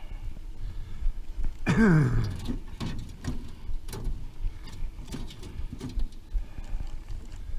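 A man's falling-pitch 'ooh' of exertion about two seconds in, then scattered clicks and knocks of two freshly caught bass and a multi-lure umbrella rig being handled in a boat, over the low rumble of the boat's running motor.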